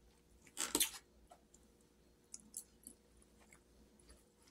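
Quiet close-up eating sounds: chewing and small clicks of a plastic fork in a foam takeout tray, with one louder noisy sound just under a second in.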